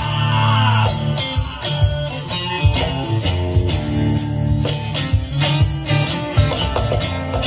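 Live band playing an instrumental passage without vocals: strummed acoustic guitar and electric guitar over a steady hand-drummed cajon beat.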